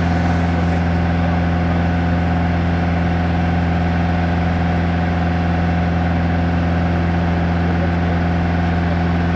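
Light touring aircraft's engine and propeller droning steadily in cruise, heard from inside the cabin.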